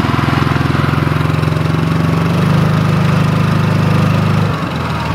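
DuroMax 7 hp single-cylinder side-shaft engine repowering a quad, running steadily; it revs up a little about halfway through and drops back near the end.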